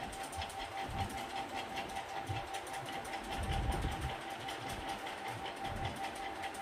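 A small motor running steadily: an even whine with fast, regular ticking. A few low thumps come through, the heaviest about three and a half seconds in.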